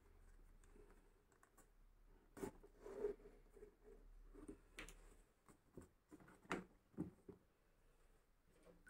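Faint sounds of hand-stitching leather: the needle and thread pulled through the stitching holes of a leather bag, with a handful of short, soft scrapes and taps as the thread is drawn out and the leather is handled.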